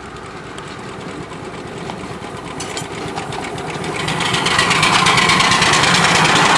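5-inch gauge ride-on steam locomotive running past with passenger trucks, its fast, even beat growing louder as it comes near and loudest from about four seconds in.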